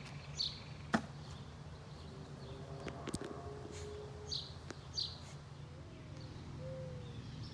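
Outdoor ambience with a steady low hum, broken by a few short, high bird chirps and two sharp clicks. Short repeated calls come in near the end.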